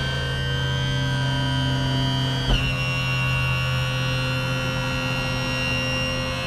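Outboard motor's electric power trim/tilt pump running steadily as it tilts the engine up, a hum of several steady tones. About two and a half seconds in there is a click and the hum drops slightly in pitch.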